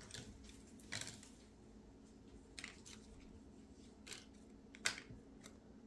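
Faint rustling and a few short clicks from clothing being handled, with the loudest click near the end, over a low steady room hum.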